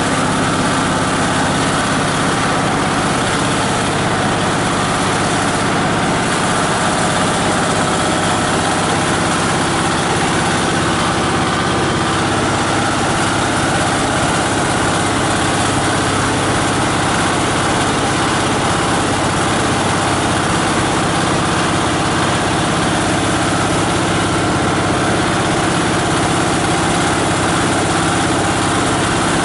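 18 HP diesel engine driving a multi-blade plastic grinder, running steadily at an even speed and level.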